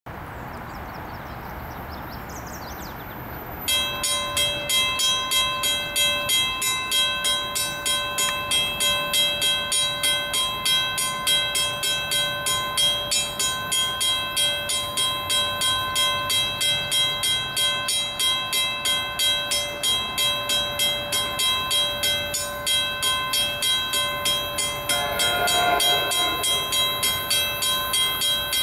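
Railroad crossing signal bell starts ringing suddenly about four seconds in, a steady ding about twice a second. Near the end a train horn begins to sound as the train approaches the crossing.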